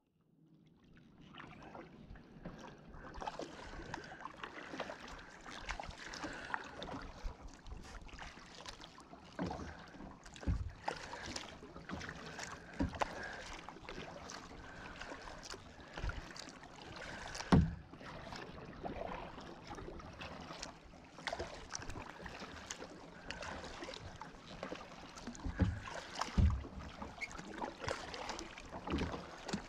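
Kayak paddling: the paddle dipping, splashing and dripping with each stroke, with scattered clicks and a few louder thumps, the loudest about two-thirds of the way through.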